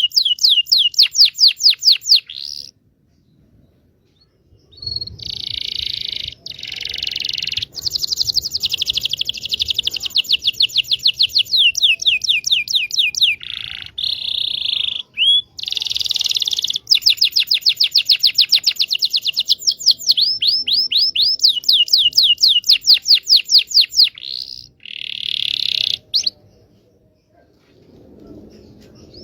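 Domestic canary (local Indonesian kenari) singing long runs of fast, repeated sweeping notes and trills, with two short pauses, one a few seconds in and one near the end.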